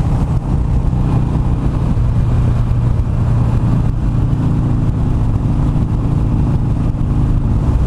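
Harley-Davidson Iron 883's air-cooled V-twin running steadily at road speed, with wind rushing over the microphone.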